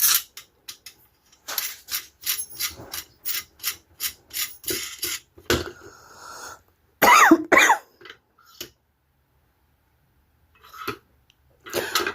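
Small parts of a vintage gumball machine clicking and clattering as they are handled and fitted together, a quick run of sharp clicks, then a person coughing twice about seven seconds in, with a weaker cough or throat-clearing near the end.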